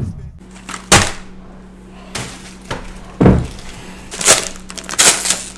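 Foil snack-chip bags being handled and torn open: several sharp crinkling, tearing bursts, about four, one with a dull thump, over a faint steady hum.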